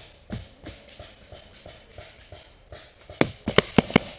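Paintball markers firing: a single sharp pop shortly after the start, then a quick string of about five pops a little after three seconds in. Softer knocks come at a fairly even pace between them.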